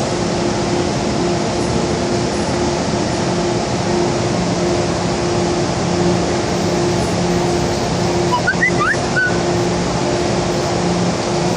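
Metro train standing at an underground platform with its doors open: a steady hum of its air-conditioning and on-board equipment with two low steady tones over platform noise. A few short high chirps come about eight and a half seconds in.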